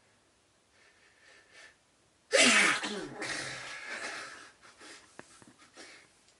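A person sneezing once. Short breaths build up, then one loud sneeze bursts out about two seconds in, the voice falling in pitch, followed by several short breaths.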